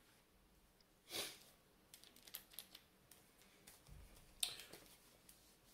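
Faint handling noises from a degaussing wand and its cable: scattered light clicks and rustles as the tube is gripped and twisted to pull it apart, with a soft thump about four seconds in. The wand does not come apart: its casing is glued together.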